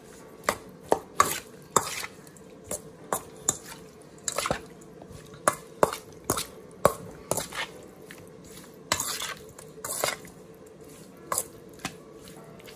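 Utensil clinking and tapping against a bowl in irregular sharp knocks while raw shrimp are mixed with seasoning.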